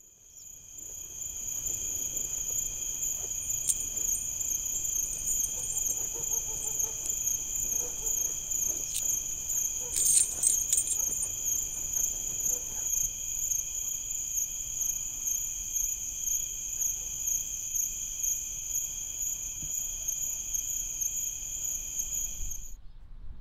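Steady chorus of shrill insects, several high tones holding at once with a fast pulsing, fading in at the start and cutting off suddenly near the end. A few faint clicks sound over it about ten seconds in.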